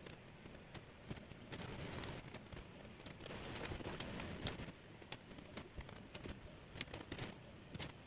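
Thin plywood jigsaw puzzle pieces clicking and sliding against each other and the tabletop as hands sort and push them about. It is a faint run of many small clicks over a soft rustle, busiest in the middle.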